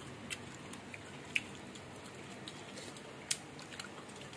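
Scattered light clicks of a metal spoon and other utensils against ceramic bowls and plates, with a quiet pause between them.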